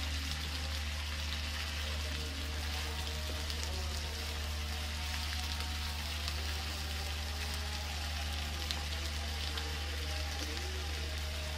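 Sliced potatoes sizzling in hot oil in a frying pan, a continuous hiss with small scattered crackles, over a steady low hum.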